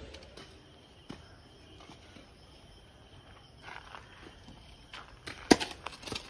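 Spades and shovels scraping and knocking in red soil and stones, in scattered short strokes with one sharp strike about five and a half seconds in.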